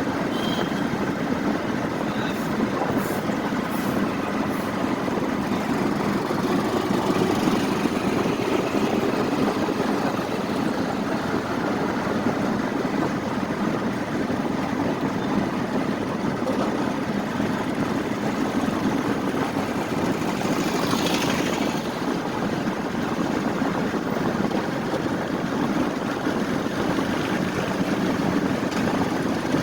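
An engine running steadily with a low drone. There is a brief hiss about 21 seconds in.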